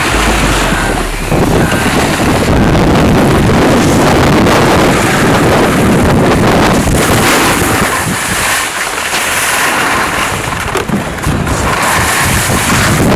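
Wind rushing over the microphone of a camera moving down a ski slope, mixed with the hiss of a snowboard sliding over snow; a loud, steady rushing noise.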